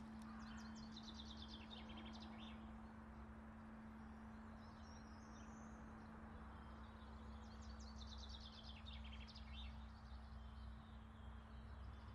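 Faint outdoor ambience with a small songbird singing a quick series of high notes twice, the second song about seven seconds after the first, plus a few short chirps between. A low steady hum and rumble lie under it.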